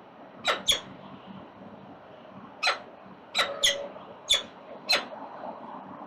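Peregrine falcon chicks giving short, shrill begging calls while being fed, seven in all, some in quick pairs, over a steady background hum.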